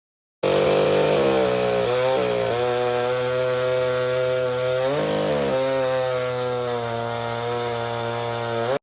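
Vintage two-stroke chainsaw running at high throttle while cutting wood. The engine note sags twice under load, about a second and a half in and again about five seconds in, recovering each time.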